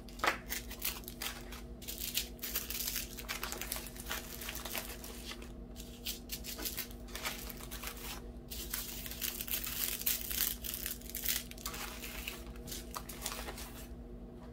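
Small plastic bags of diamond-painting drills being handled and sorted, crinkling in irregular crackles with a few brief pauses.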